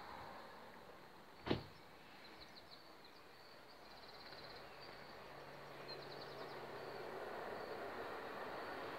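Faint outdoor background noise with one sharp knock about a second and a half in, and a few brief, faint high chirps.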